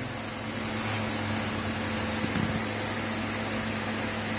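CNC router's high-frequency, water-cooled spindle running while the bit engraves lines into a wooden board: a steady hum with an even hiss over it, slightly louder for a moment about two seconds in.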